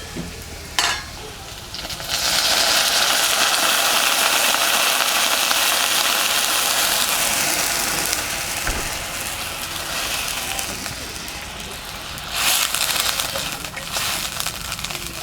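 Water poured into a kadai of potatoes frying in hot mustard oil: a loud sizzle breaks out about two seconds in and slowly dies down, flaring up briefly again near the end.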